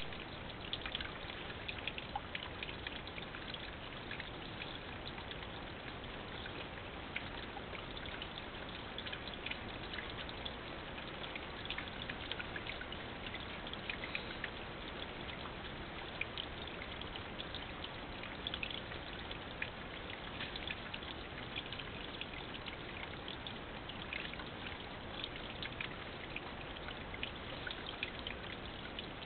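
Water trickling steadily, with many small irregular drips and splashes, heard through a trail camera's microphone.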